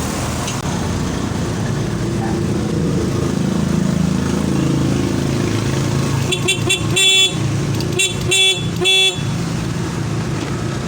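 Yamaha Mio Sporty's stock single electric horn beeping: a few quick taps, then three short beeps, sounded from a newly fitted handle switch and showing the horn now works. An engine runs steadily underneath.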